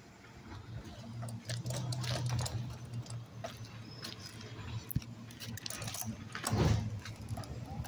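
A garbage truck's diesel engine running with a steady low hum, under a scatter of sharp clicks and knocks. It swells louder briefly about six and a half seconds in.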